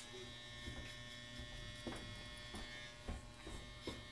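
Andis Master corded hair clipper's magnetic motor running with a steady hum as it cuts along the side of the head, with a few short ticks.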